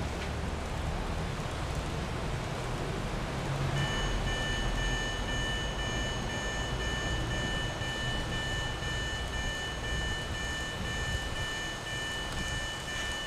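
Electronic railway level-crossing alarm switching on about four seconds in and sounding a steady high multi-tone alert, then cutting off near the end: the alarm triggered by a train entering the sensor section and released once it has cleared the crossing. A steady hiss and a low rumble run underneath.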